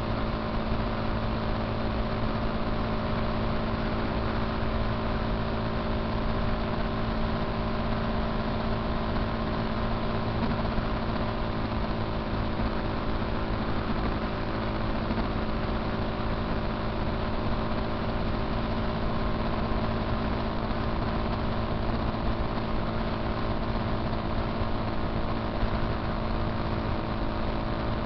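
Motorcycle engine running at a steady cruising speed, its tone unchanging, under constant wind and road noise.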